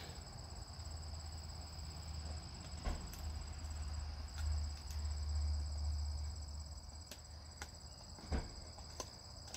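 Insects chirring steadily in a high, even tone, over a low rumble that swells in the middle. A dog gnaws a pig snout, giving a few scattered sharp crunching clicks.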